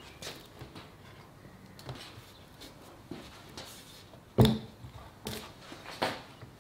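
Wooden frame parts being handled on a workbench: light clicks and taps, then one solid knock of wood against the benchtop a little past halfway, followed by two lighter knocks.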